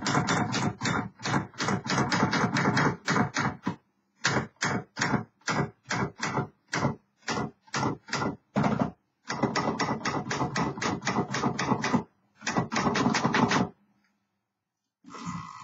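A 1960s Remington Sperry Rand Personal-Riter manual portable typewriter being typed on in quick runs of sharp key strikes, several a second. The typing pauses briefly about four seconds in and again near the end.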